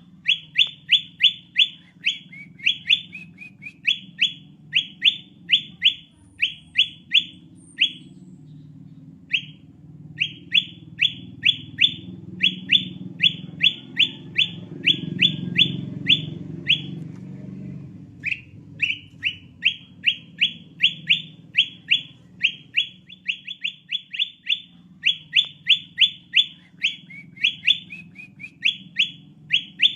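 Bird-lure recording of the golden bulbul (kutilang emas) calling: a fast, even run of short, sharp, downward-sliding whistled notes, about three or four a second, broken by two brief pauses. A faint low rumble sits underneath.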